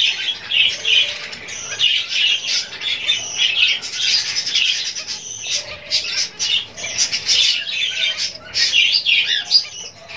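Many caged birds chirping and calling at once in a dense, unbroken high chatter.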